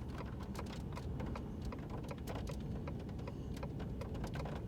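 Scattered raindrops tapping irregularly on a vehicle, several light ticks a second over a low steady rumble, as a storm moves in.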